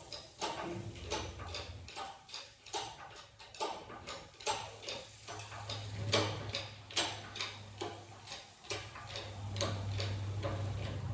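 Engine hoist and its chain being worked to lift a V8 engine: a run of sharp metallic clicks, irregular, about one or two a second, over a low hum that comes and goes.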